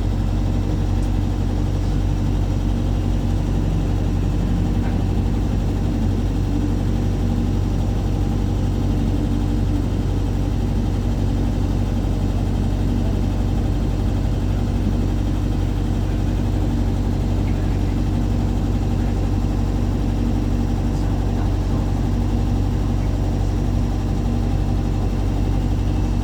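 A vehicle engine giving a steady low drone that holds one pitch, with no revving.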